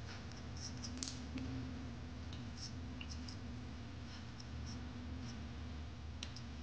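Quiet room tone: a low steady hum with faint, scattered small clicks.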